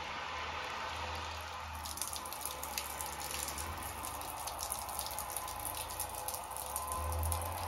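Water from a watering can's sprinkler rose pattering and splashing onto potting soil in a hanging plant pot, beginning about two seconds in, over a low steady hum.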